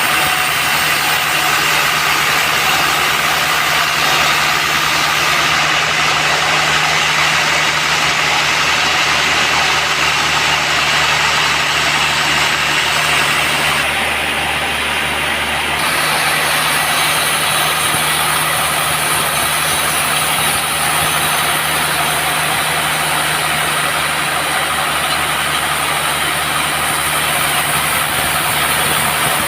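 Band sawmill running steadily: a constant machine drone with a low hum underneath.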